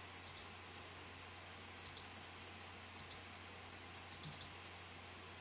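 Faint computer mouse clicks: a few scattered single and paired clicks, with a quick cluster about four seconds in, over a low steady hum.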